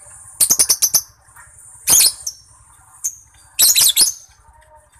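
Lovebird singing in three bursts of high-pitched chattering: a quick run of short chirps about half a second in, a brief burst near two seconds, and a longer burst near four seconds.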